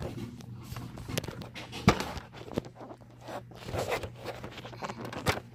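Small toy figures and plastic dollhouse furniture being handled: scattered clicks, scrapes and rustles, with one sharp knock a little under two seconds in, over a low steady hum.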